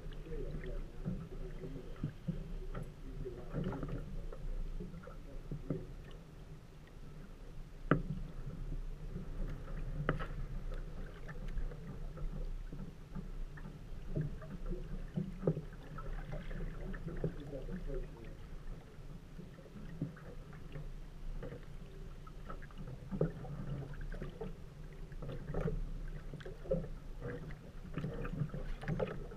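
Small waves lapping against the hull of an aluminum fishing boat, with scattered knocks and clicks in the boat, the sharpest about eight seconds in.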